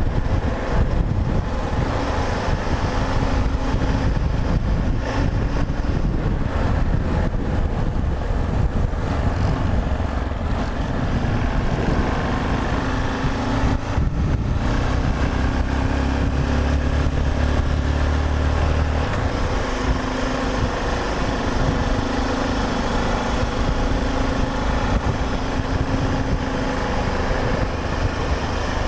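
Yamaha XT 660Z Ténéré's single-cylinder engine running steadily while the motorcycle is ridden, with a deeper low rumble swelling for a few seconds about halfway through.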